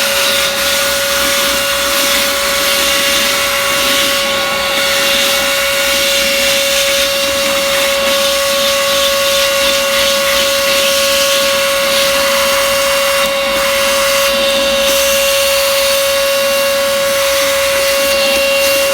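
Rechargeable handheld vacuum cleaner running steadily with a high, even motor whine, fitted with its crevice tool on an extension hose.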